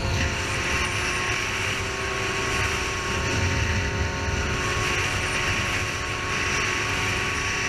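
600 cc inline-four sport motorcycle engine running at a steady cruising speed, heard from the rider's position with heavy wind noise over the microphone.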